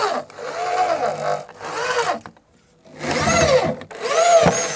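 Handheld power drill driving in the screws that fasten a speaker horn flare. It runs in four short bursts, its whine rising and then falling in pitch each time the trigger is squeezed and released.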